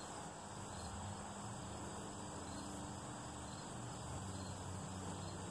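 A steady chorus of insects.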